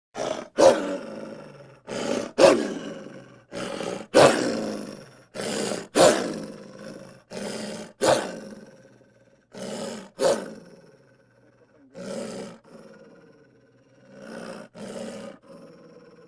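A run of short roaring animal sound effects, over a dozen, each starting suddenly and fading within about a second. They come in quick pairs at first and grow fainter and sparser toward the end.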